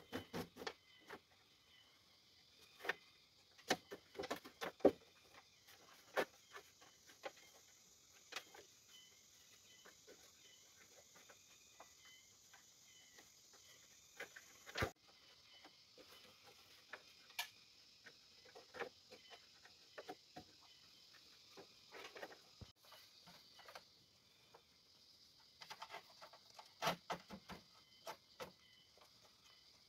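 Scattered light clicks and knocks at irregular intervals, a little busier near the start and near the end, over a faint steady high hiss.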